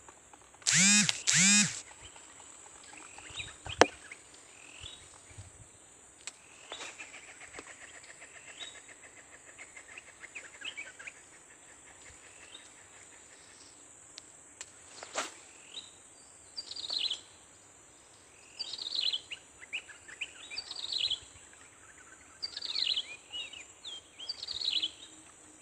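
Birds calling in the open: two loud calls about a second in, then a buzzy trill, and in the second half a run of short, repeated falling chirps. Two sharp clicks stand out, one near four seconds in and one a little past the middle.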